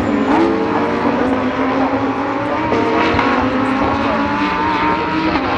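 GT3 race car engines at speed, several at once, their pitch climbing slowly as they accelerate, with a brief dip in pitch shortly after the start and another near the end.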